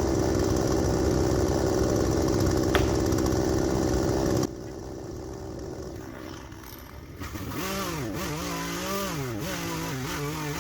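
Husqvarna 120 Mark II two-stroke gas chainsaw running steadily, stopping abruptly about four and a half seconds in. Background music starts near the end.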